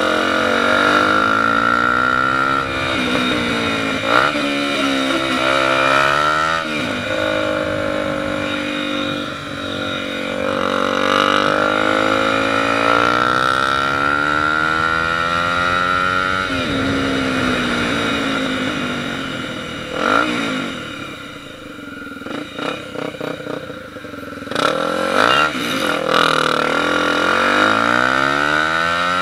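Single-cylinder engine of a Honda XR 250 Tornado motorcycle being ridden and accelerated through the gears: its pitch climbs in each gear and drops at every upshift. About two-thirds of the way through it eases off to a quieter, uneven patch with a few short blips, then pulls away again near the end.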